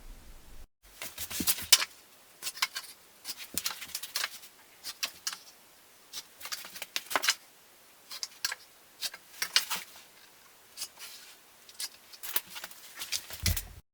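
Irregular short clicks and scrapes of tools and material being handled in a workshop, in uneven clusters, with a dull thump near the end.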